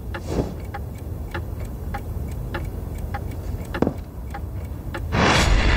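A clock ticking steadily, about five ticks every three seconds, over a low steady hum. Near the end a loud rushing whoosh comes in.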